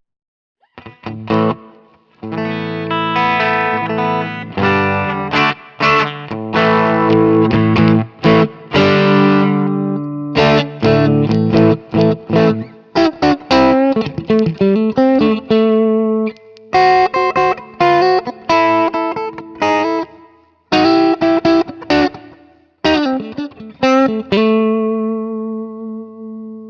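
Electric guitar played through the Neural DSP Mesa Boogie Mark IIC+ amp-modeler plugin with effects on. It plays chords and sustained notes, breaking off briefly a few times, and ends on a held note.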